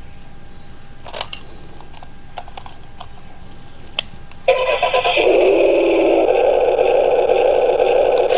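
A few light clicks, then about halfway through a toy RC car's small electric motor starts suddenly and runs with a steady whir to the end.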